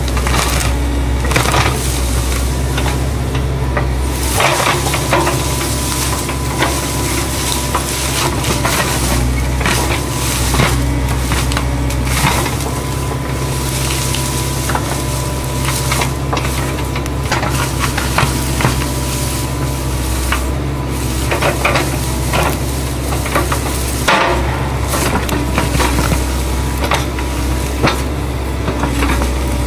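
Kubota U-45 mini excavator's diesel engine running steadily under load while the bucket digs and scrapes through dirt and roots, with irregular crunching and cracking on top.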